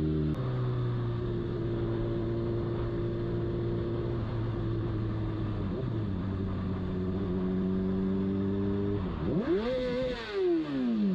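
Sport motorcycle engine running at a steady speed under the rider, then revved sharply up and back down about nine seconds in.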